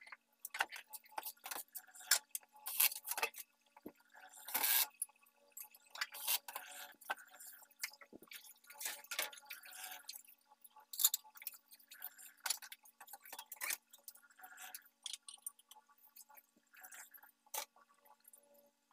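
Hands handling a flat-screen TV's sheet-metal chassis and circuit boards during reassembly: irregular small clicks, taps and light knocks of metal and plastic parts. A faint steady hum runs underneath.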